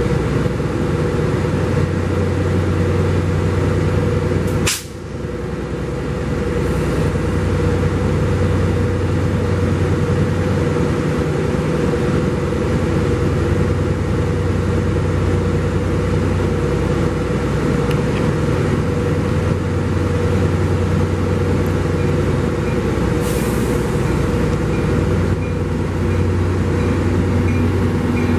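Diesel locomotive engines running steadily with a loud, constant low hum as trains stand and creep through the station. The sound briefly drops out about five seconds in, and there is a short burst of air hiss late on.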